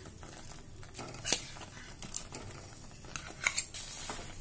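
A slotted metal spoon stirring and pressing a lump of mawa (khoya) into gram flour roasting in ghee in a kadhai: soft scraping and squishing, with a few light clicks of the spoon against the pan.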